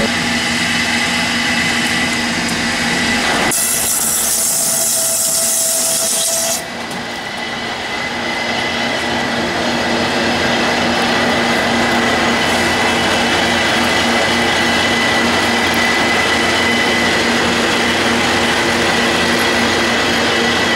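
MBZS-4 bamboo stick making machine running as bamboo strips are fed through its rollers and cutters to be planed into round sticks: a steady mechanical hum with a high whine, joined for about three seconds near the start by a loud high hiss.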